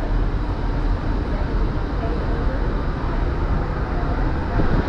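Wind rumbling on the microphone out on an open ship deck: a steady low noise with no clear tone.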